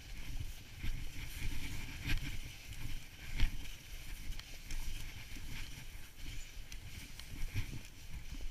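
Snowboard sliding over packed, tracked snow: an irregular scraping hiss of the base and edges with short chattering scrapes, over a low rumble, heard through a GoPro on the rider.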